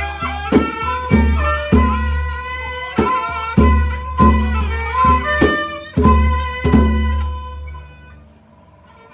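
Kantrum folk music: a sustained fiddle melody over a steady low drum beat, about one stroke every 0.6 seconds. The music dies away about seven and a half seconds in.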